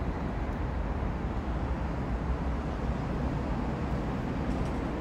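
Steady low outdoor background rumble with no distinct events, the kind of even noise left by distant road traffic and air moving past the microphone.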